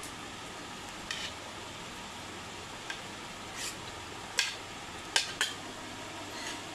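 A steel serving spoon scraping and clinking against stainless-steel plates and a serving dish as food is spooned out: several short clinks, the sharpest two close together about five seconds in, over a steady background hiss.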